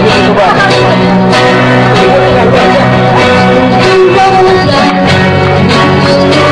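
A small live band playing: acoustic guitar with bass and singing voices, loud and steady.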